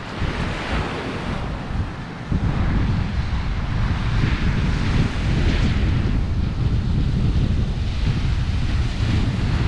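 Ocean surf breaking and washing up a sandy beach, with wind buffeting the microphone, the buffeting heavier from about two seconds in.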